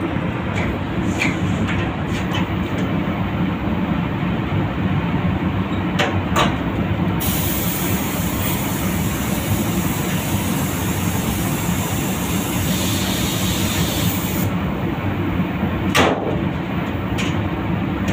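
Compressed-air spray gun hissing in one long pass of about seven seconds in the middle, laying on metallic grey base coat, over a steady low rumble. A few short clicks come just before the spraying and again after it.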